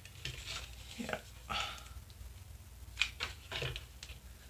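Faint rustling and light clicks of artificial silk flowers and a hot glue gun being handled on a table, with a sharper click about three seconds in.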